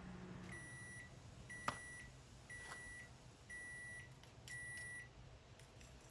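Microwave oven's end-of-cycle beeper sounding five times, one high half-second beep about every second, signalling that the cooking time is finished. A single click comes between the first and second beeps.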